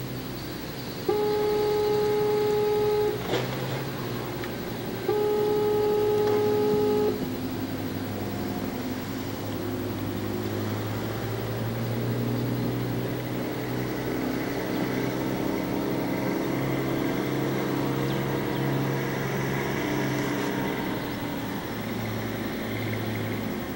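Ship's whistle on the SS Badger carferry sounding two long blasts, each about two seconds, a couple of seconds apart, followed by a steady low rumble.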